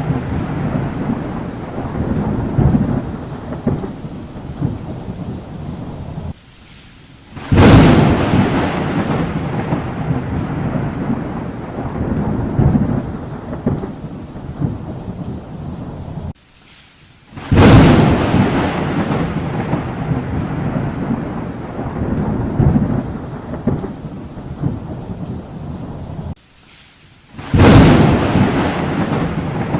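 Thunderstorm recording: rolling thunder over steady rain, with three identical thunderclaps about ten seconds apart. Before each clap the sound drops to a brief hush, then a sudden sharp crack fades into a long rumble.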